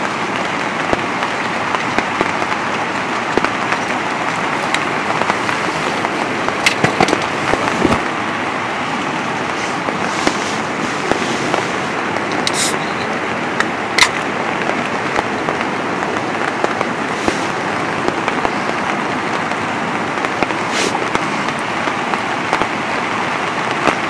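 Rain falling steadily on the tent fly, heard from inside as a dense, crackling patter. A few sharp clicks and knocks stand out, about seven seconds in and again around twelve to fourteen seconds.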